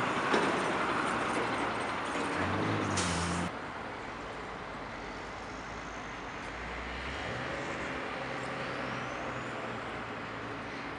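Road traffic: vehicles passing, with a heavy vehicle's engine heard low, then the sound drops suddenly about three and a half seconds in to a quieter, steady traffic hum.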